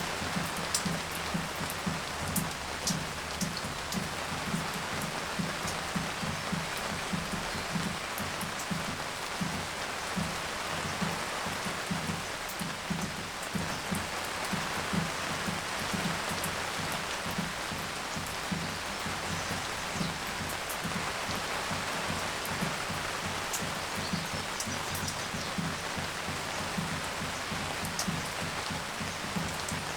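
Steady rain shower hissing, with many drops landing on nearby surfaces as dull low taps several times a second and scattered sharper ticks.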